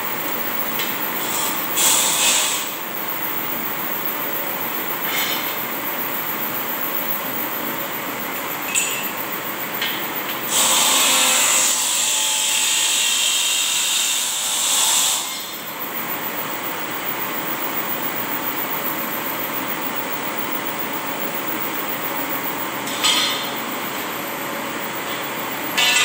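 Angle grinder cutting metal, one loud grinding burst of about four and a half seconds near the middle, with shorter touches and knocks of metal before and after. A pedestal fan whirs steadily underneath.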